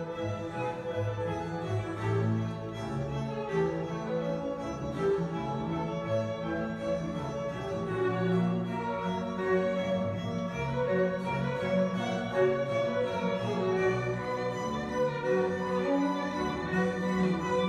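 Background music: slow orchestral strings with violin and cello, playing long held notes.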